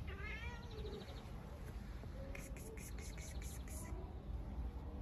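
Small birds chirping outdoors: a quick trill at the very start, then a run of rapid chirps from about two seconds in, over a steady low outdoor rumble.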